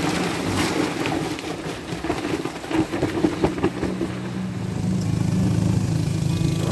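Irregular clicking and rattling of harvested tiger prawns and ice chunks being handled in a plastic cooler box, with a woven sack rustling. About two-thirds of the way through, a steady low hum takes over.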